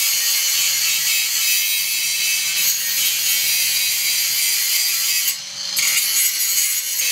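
Cordless angle grinder with a thin cutting disc grinding down a bracket, a continuous high grinding noise that breaks off for about half a second just after five seconds in, then starts again. The cutting disc is being used for grinding, which the user warns against.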